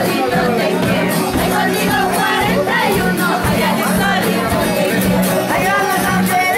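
Group of voices singing together to several strummed acoustic guitars, with crowd voices around them.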